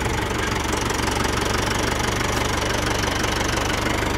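SAME Corsaro 70 tractor's diesel engine running steadily at low revs.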